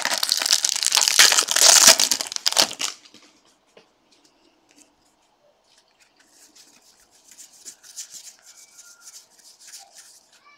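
Plastic trading-card pack wrapper crinkling and tearing open, loud for about the first three seconds. Then, from about six seconds in, faint scattered rustling and ticking as a stack of baseball cards is thumbed through one by one.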